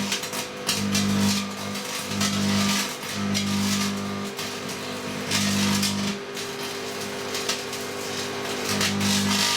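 Microwave oven modified with two magnetrons, running: a loud mains hum from its high-voltage transformers cuts in and out several times, with bursts of hissing crackle.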